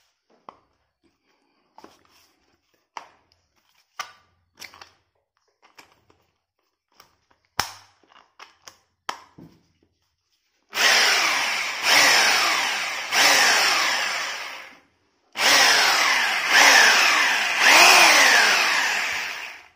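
Corded rotary hammer drill in drill-only mode, run free in the air in six short trigger pulls in two groups of three. Each time the motor spins up suddenly, then winds down with a falling whine as it coasts. Before that, light clicks and knocks as the bit is fitted into the chuck and the drill is handled.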